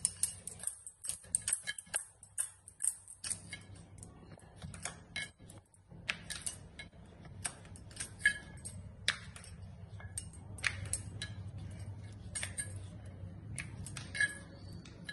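Wooden rolling pin rolling out dough on a granite board, with frequent irregular light clicks and clinks from bangles and the pin knocking on the board. A low steady hum sits underneath from about three seconds in.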